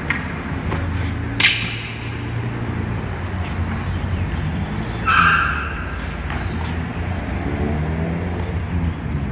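Steady low rumble with one sharp crack about one and a half seconds in, typical of a wooden staff striking the concrete floor. A brief high-pitched call stands out about five seconds in.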